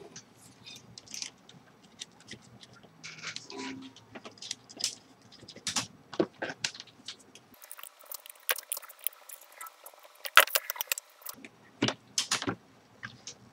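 Irregular small clicks, taps and light rattles of small metal parts and hand tools being handled, with a quicker run of sharp clicks about ten to twelve seconds in.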